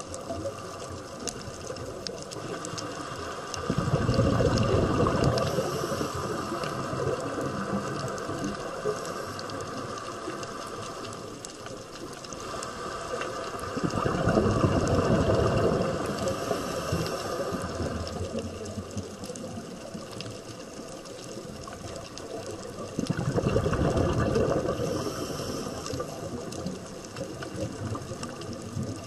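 Underwater sound as picked up by a diver's camera: three surges of bubbling, about ten seconds apart and each two to three seconds long, typical of a scuba diver exhaling through a regulator, over a steady mechanical hum.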